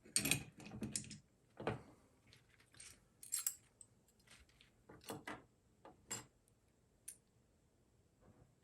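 Small metal and plastic parts of a disassembled Schlage Touch electronic deadbolt being handled: a series of faint, separate clicks and clinks, several in quick succession at first, then one every second or so.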